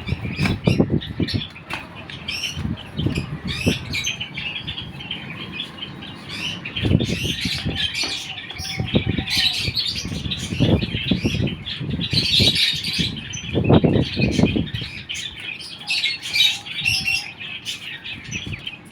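A flock of Silkie chickens chirping continuously in high-pitched peeps, with several short flurries of wing flapping and scuffling.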